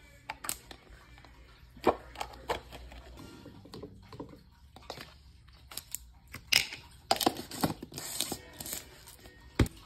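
Plastic powder tub and scoop being handled: a scattered series of sharp clicks and knocks with soft scraping, as powder is scooped from the tub into a glass of water.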